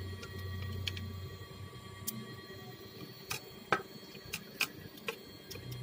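Scattered small sharp clicks and taps, about eight, irregularly spaced, from tools and parts being handled while the heatsink fan is taken off a netbook's motherboard, over a faint low hum that fades after about two seconds and returns near the end.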